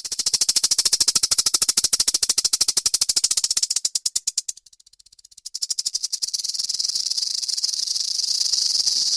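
Rattlesnake shaking its tail rattle: a rapid, high buzzing train of clicks, the snake's warning. It dies down briefly about halfway through, then starts again and settles into a steady, continuous buzz.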